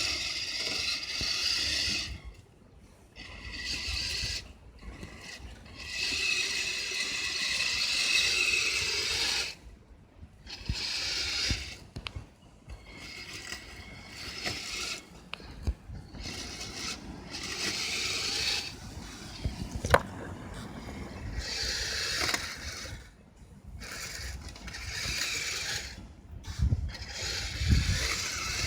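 Motor and gear-driven tracks of a Kyosho Blizzard SR radio-controlled tracked snow vehicle whirring in repeated bursts, stopping and starting again many times. A single sharp click comes about two-thirds of the way through.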